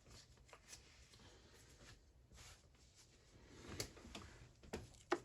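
Faint handling clicks and taps of small ratchet parts and the freshly removed snap ring on a work surface, with one sharper click near the end.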